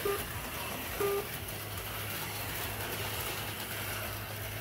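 HO-scale slot cars running on the track, a steady whirring haze from their small electric motors and pickups on the rails. Two short beeps sound about a second apart near the start.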